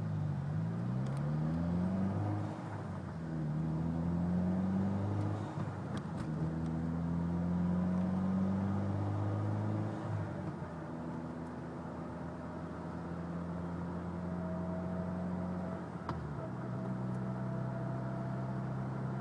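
Mitsubishi Lancer Evolution X driving, its engine note rising and dropping several times, with a thin high whine from the front end that climbs with speed under load. The whine is typical of a worn transmission or transfer case, which the owner suspects.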